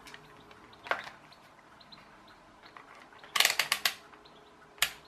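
Handling clicks and taps from a digital multimeter being picked up and set up to measure resistors: a single click about a second in, a quick run of about five clicks around three and a half seconds in, and one more click near the end.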